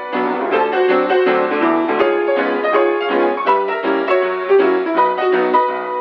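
Background piano music: a steady run of notes.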